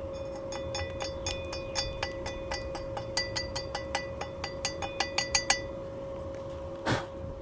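A rapid, irregular run of metallic clinks, each ringing briefly, over about five seconds and getting louder toward the end, like metal being tapped or struck. A steady hum runs underneath, and a single short noisy burst comes near the end.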